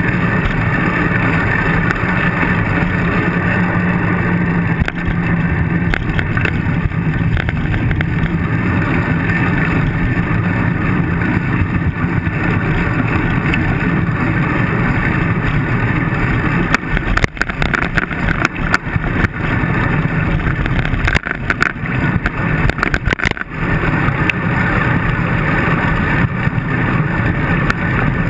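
Road bike ridden on asphalt, heard from a handlebar-mounted camera: a steady rush of wind on the microphone and tyre noise on the road. Past the middle, for several seconds, the bike jolts and rattles with a run of sharp knocks over rough pavement.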